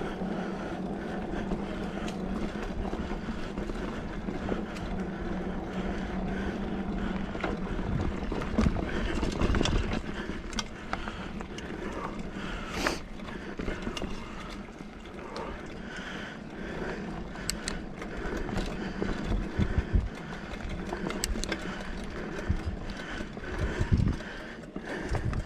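A 2020 Specialized Fuse 27.5+ mountain bike ridden along a dirt singletrack: steady tyre and riding noise with knocks and rattles over bumps, and chain and derailleur noise from a drivetrain that is shifting badly after the derailleur or its hanger was bent. A low steady hum fades out about seven seconds in.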